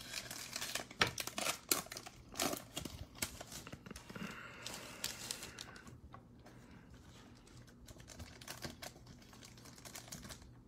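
Trading cards from a Panini Mosaic basketball pack being handled: soft, irregular clicks and taps as cards are flipped through and set down, with light crinkling of the foil pack wrapper. The clicks come thickest in the first half and thin out in the middle.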